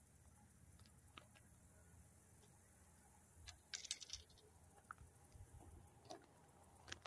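Near silence with faint scattered clicks and a brief rustle about four seconds in.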